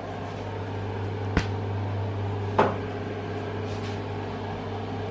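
A steady low electrical hum, with two sharp knocks about a second apart; the second knock is the louder one and rings briefly.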